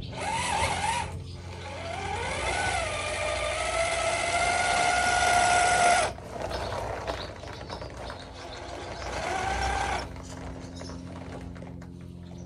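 Redcat RC crawler's electric motor and geared drivetrain whining as it climbs a wooden plank. The pitch rises and wavers with the throttle, then holds steady. The whine cuts back about six seconds in, swells once more near ten seconds, then settles to a low hum.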